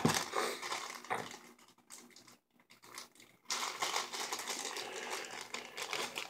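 Clear plastic packaging crinkling and crackling as hands unwrap a small die-cast toy car. The crinkling comes in two stretches with a quieter pause in the middle.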